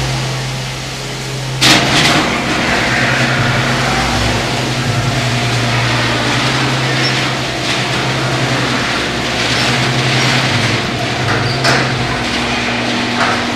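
Motorised garage door running on its opener. It starts with a loud clank about two seconds in, then rattles along its track over a steady low hum, with a few knocks and a clunk near the end.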